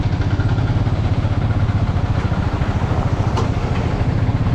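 Motorcycle engine running steadily while riding, a low, rapid throb heard from on the bike.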